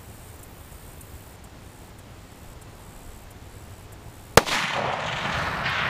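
A single shot from a .308 Tikka T3X Lite Veil Wideland bolt-action rifle about four seconds in, followed by a long echoing tail.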